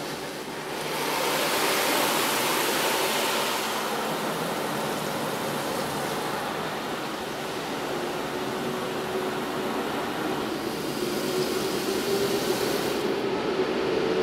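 Water jets of an automatic car wash spraying over a car, heard from inside the car: a steady rushing hiss, loudest a couple of seconds in, with a low steady hum growing underneath near the end.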